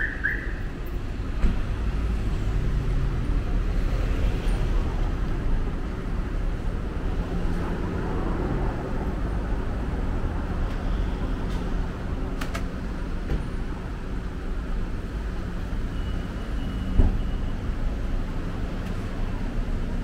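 Steady low rumble of city street traffic, with a faint engine hum and a few light clicks, and one sharp knock late on.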